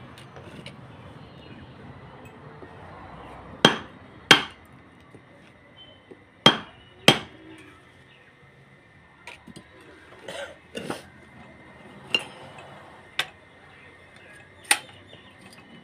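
Hammer blows on the wooden body of a lorry: about nine sharp strikes at uneven intervals, several coming in pairs about half a second apart, each with a short ring.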